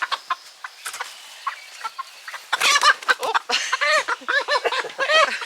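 Backyard chickens clucking: scattered short clucks at first, then from about halfway many loud, repeated calls overlapping, several a second.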